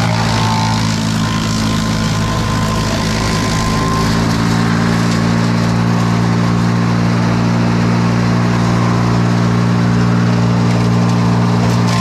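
Vermeer wood chipper's gas engine running steadily while thin branches and twigs are fed into the hopper.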